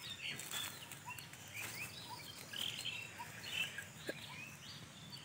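Small birds chirping outdoors: many short, high chirps and rising or falling chirrups, with a soft lower note repeating about once a second.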